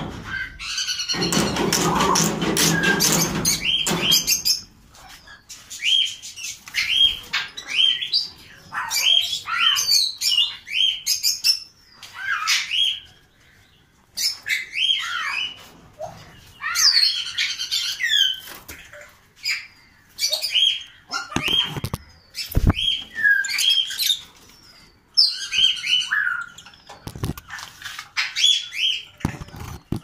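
Small parrots in an aviary calling over and over with short, harsh chirps and squawks, many of them falling in pitch. A loud noisy sound lasts about three seconds near the start, and a few low knocks come later.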